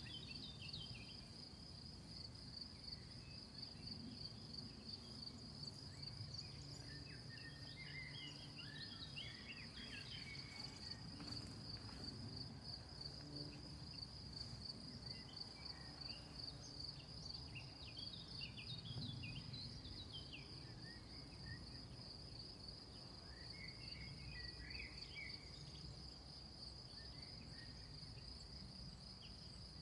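Crickets chirping in a steady, fast-pulsing high trill, with scattered short bird chirps now and then and a faint low rumble underneath.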